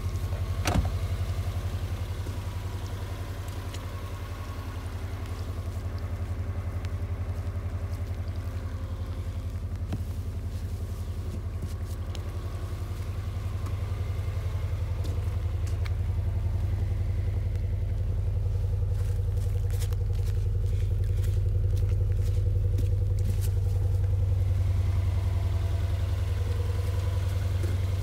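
Subaru Legacy BH5's 2.0-litre flat-four boxer engine idling steadily, a deep even rumble that grows a little louder in the second half.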